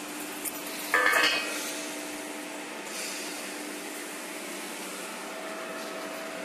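A coil of bent metal tube set down on a concrete floor, clanking once with a short metallic ring about a second in. A steady hum runs underneath.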